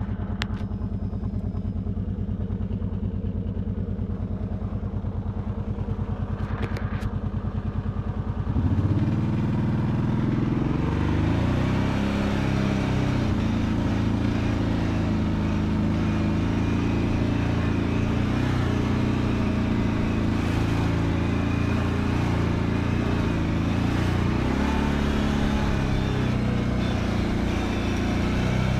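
Kawasaki Brute Force 750 ATV's V-twin engine idling steadily, then about eight seconds in pulling away and running under throttle, its pitch rising and falling as it rides.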